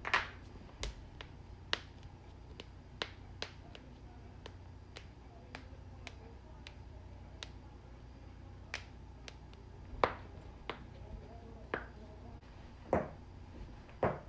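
Human joints cracking: a run of sharp pops and clicks at irregular intervals, many faint and a handful louder, the loudest about ten seconds in.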